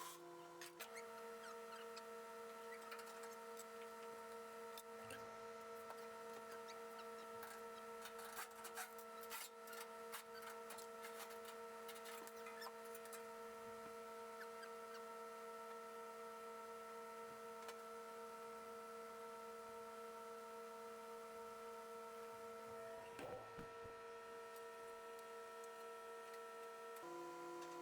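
Faint steady hum made of several held tones together, which shifts to a different set of tones about a second in and again near the end, with a few faint clicks.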